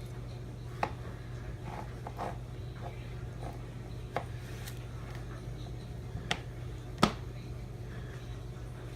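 Kitchen prep handling on a cutting board: four sharp knocks with softer taps between, the loudest about seven seconds in, over a steady low hum.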